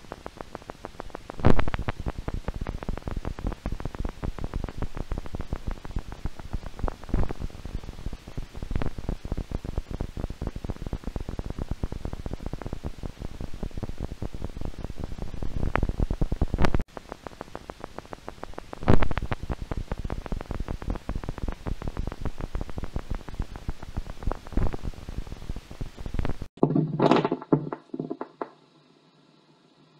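Needle EMG loudspeaker playing spontaneous muscle fiber activity, fibrillation potentials and positive sharp waves: a dense, irregular crackle of small clicks with an occasional louder pop, like rain on a tin roof. It is the sign of muscle fibers that have lost their nerve supply after severe axonal injury. Near the end the sound changes to a few louder bursts, then briefly stops.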